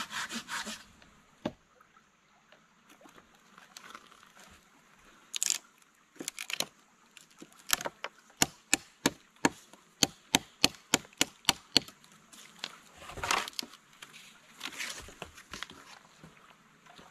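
The last strokes of a saw cutting wood, then after a pause a run of sharp, evenly spaced knocks, about three a second, as a knife blade strikes into a wooden stick. A brief rustle and brushing follows near the end.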